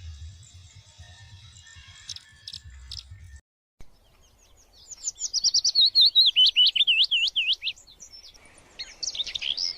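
Prinia (prenjak) song: a rapid run of loud, sharp repeated chirps, about five a second. It starts about halfway through and breaks off briefly before a second burst near the end. Faint music with a low beat is heard in the first few seconds.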